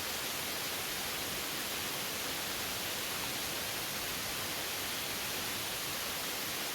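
Waterfall rushing steadily: an even hiss that does not change.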